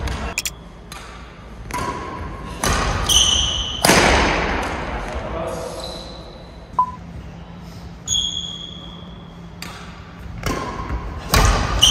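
Badminton rally: a string of sharp, irregularly spaced racket hits on the shuttlecock, mixed with short high squeaks of shoes on the court floor.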